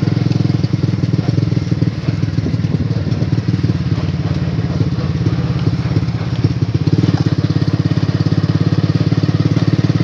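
Small motorcycle engine running while being ridden, heard from on the bike, its firing pulses steady and even. The engine eases off about a second in and picks back up about seven seconds in.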